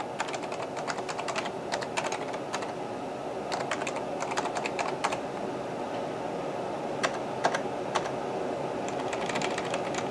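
Computer keyboard being typed on slowly as a line of text is entered: uneven bursts of keystrokes, a pause about halfway through, then a few single key presses and another short burst. A steady hum runs underneath.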